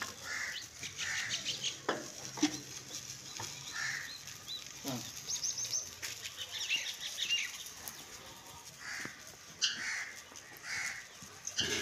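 Birds chirping and calling in short bursts, with a quick run of chirps about halfway through and a few sharp knocks and clicks.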